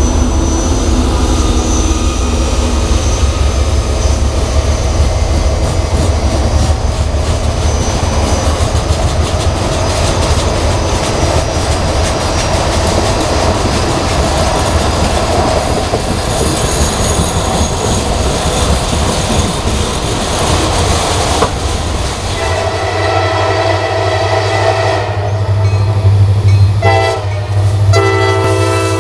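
A freight train's cars rumbling and clattering past on jointed rail for most of the clip. Near the end a CSX diesel locomotive's multi-note air horn sounds, a long blast broken by a couple of short gaps.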